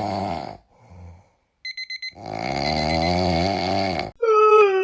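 Cartoon sound-effect sequence: snoring, then a quick run of electronic alarm-clock beeps, then a long drawn-out wavering moan that cuts off. A howl with falling pitch begins near the end.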